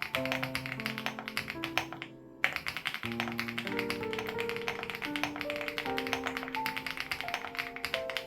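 Fast typing on a Crush80 Reboot mechanical keyboard with HMX Hyacinth switches: a rapid stream of keystroke clacks that stops for a moment about two seconds in. Background music with held notes plays underneath.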